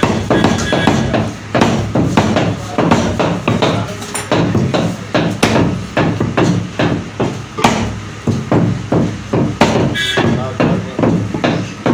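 Butcher's cleaver chopping beef on a wooden chopping block: a steady run of heavy chops, about two to three a second.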